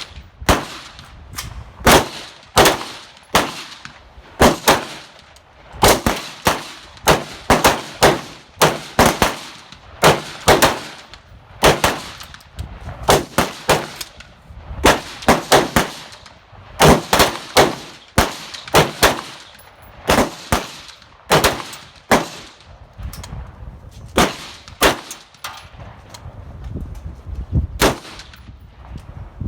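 Rifles firing along a match firing line: dozens of sharp gunshots from several shooters, irregularly spaced at about one to two a second and each ringing out briefly, thinning out near the end.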